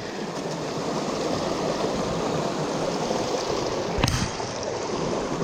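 Fast-flowing river water rushing steadily, with a single brief knock about four seconds in.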